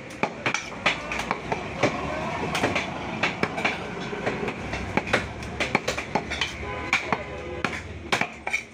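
Irregular sharp knocks, a few a second, from a butcher's cleaver chopping beef on a wooden block, over a steady low rumble of market background.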